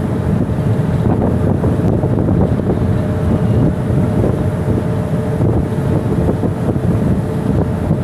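Strong wind buffeting the microphone on a ferry's open deck, over the steady running of the ship's engine and the rush of a rough sea. A faint steady hum joins in a few seconds in.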